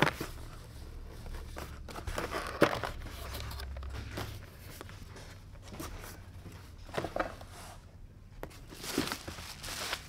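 Unpacking a cardboard shipping box by hand: flaps and packing material rustling, with scattered knocks. Near the end comes crinkling as a bubble-wrapped part is lifted out.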